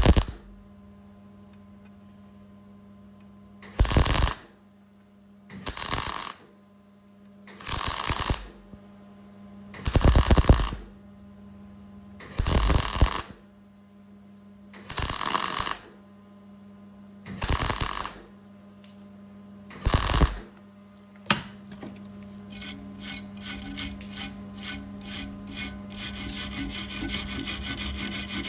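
Eight short spot welds on a steel bumper iron, each crackling for under a second, about two seconds apart, over a steady electrical hum. About three quarters of the way in, hand filing starts on the welded steel with quick, even rasping strokes, dressing the welds back flat.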